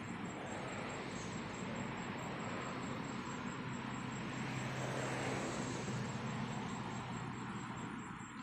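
A motor vehicle passing by: a steady engine hum with road noise that grows louder toward the middle, then fades away.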